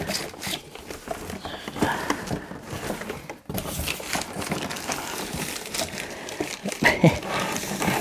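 Cardboard packaging rustling and scraping with irregular small knocks as a robot vacuum is worked out of its tight-fitting box.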